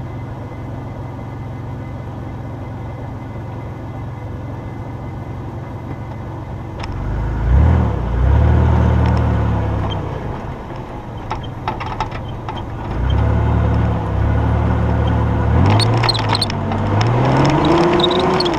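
Mitsubishi Pajero's 3.0 V6 engine running steadily at low revs, then revving up and down from about seven seconds in, rising in pitch near the end, with scattered clatters and knocks.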